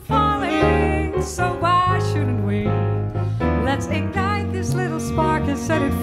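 Live jazz quartet playing: tenor saxophone and wordless vocals carry a bending melodic line over piano and double bass.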